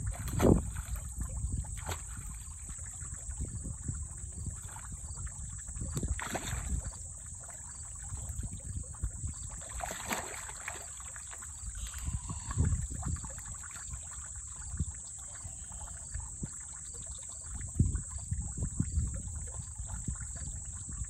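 Two common snapping turtles fighting in shallow muddy water, with splashing and sloshing that comes in surges every few seconds, loudest just after the start. Under it runs a steady high-pitched insect drone.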